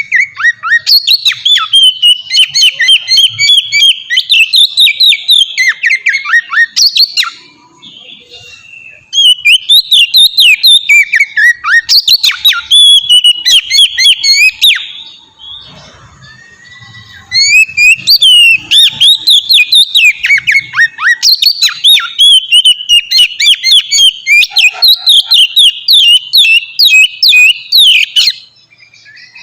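Oriental magpie-robin (kacer) singing in the loud, open, flowing 'ngeplong' style: long phrases of rapid whistled and chattering notes. There are three bouts, with short pauses about seven and fifteen seconds in.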